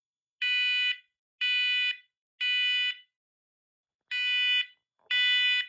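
Smoke alarm sounding the temporal-three evacuation pattern: three high-pitched beeps of about half a second each, a pause of about a second, then three more. It has been set off by candle smoke held under the sensor.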